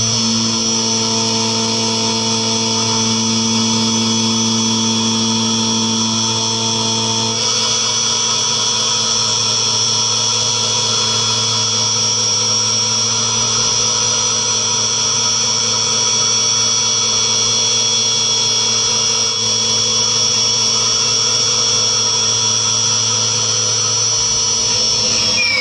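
CNC vertical mini mill cutting aluminium with an end mill: a steady high-pitched spindle whine under the noise of the cut. Near the end the spindle winds down with a falling whine.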